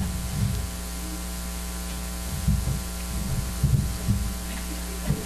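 Steady electrical mains hum with a buzzy edge, with a few soft low thumps from about two and a half seconds in.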